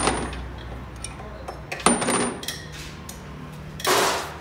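Metal tools and engine parts clinking and knocking: a sharp metallic knock at the start and another about two seconds in, each with a brief high ring, then a short rougher clatter near the end.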